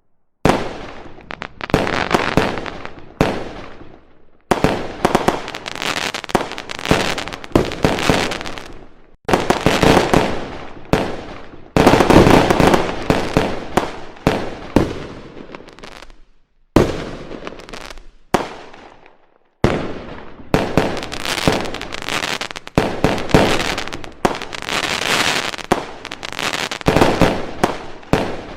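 Fireworks sound effect: clusters of sharp bangs and crackling bursts, each starting suddenly and dying away, with short pauses between the clusters.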